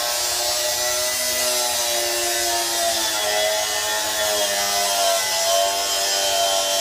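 Angle grinder running steadily against the steel of a car chassis frame, its whine wavering slowly in pitch as the disc bites into the metal.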